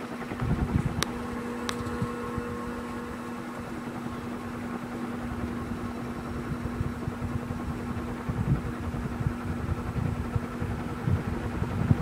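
Dayton 56-inch heavy-duty commercial ceiling fan (Leading Edge Hi-Tech II) running: a steady motor hum under an uneven low rumble of its blades' draft buffeting the microphone. Two short ticks about a second in.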